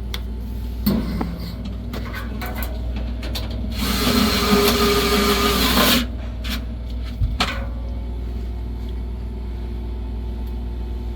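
Vessel 220USB-P1 electric screwdriver running for about two seconds in the middle, a whirring motor with grinding noise as it works. A few sharp clicks come before and after it, over a steady low hum.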